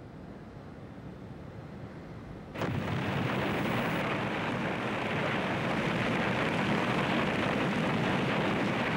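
Battle sound effects of explosions and fire: a faint low rumble, then about two and a half seconds in, a sudden jump to a loud, steady, dense rush of blast and burning noise.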